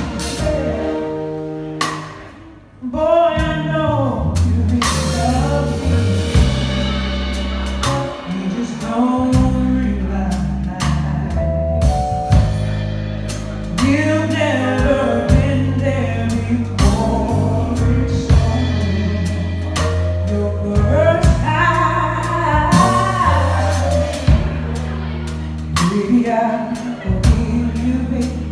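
Live band playing: a woman singing lead over electric keyboard, electric bass and drum kit. The music falls away briefly about two to three seconds in, then comes back in.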